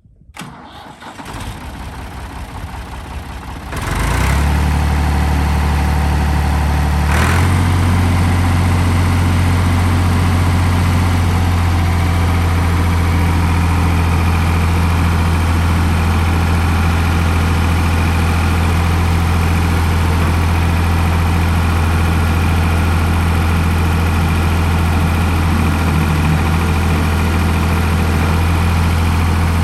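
Ford 545 backhoe loader's engine starting: a few seconds of cranking, then it catches about four seconds in. It picks up slightly in speed a few seconds later and settles into a steady idle.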